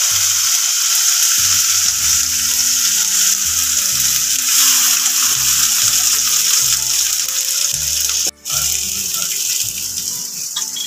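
Ground masala paste sizzling steadily as it fries in hot oil in a wok. The sizzle cuts out for a moment about eight seconds in.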